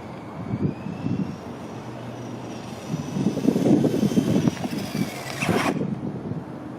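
Small electric motor of a 1:24 scale 4WD RC car whining, its pitch sliding up and down as the car speeds up and slows, over a rough rattling noise that is loudest a little past the middle. The whine rises and cuts off suddenly near the end.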